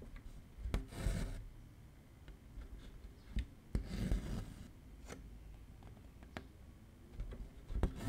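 Cotton embroidery floss drawn through 18-count cross-stitch fabric held taut in a hoop: three short scratchy pulls, about a second in, around four seconds and at the end, with faint clicks between them.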